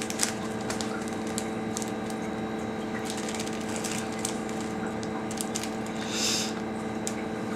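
Crunchy puffed-rice crackers being chewed: small scattered crunches and clicks over a steady electrical hum, with a short hiss about six seconds in.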